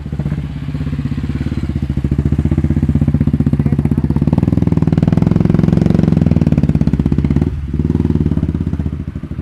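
Motorcycle engine pulling the bike up a rough dirt hairpin with a fast, even pulsing beat. It is loudest as the bike passes close about halfway through, dips briefly near the end, then picks up again and fades as the bike moves away.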